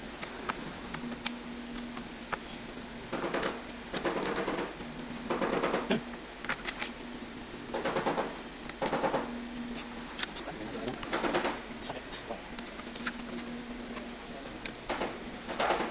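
Scattered light clicks, knocks and short scrapes of plastic and metal as a radiator, condenser and cooling-fan assembly is pushed and adjusted into place by hand.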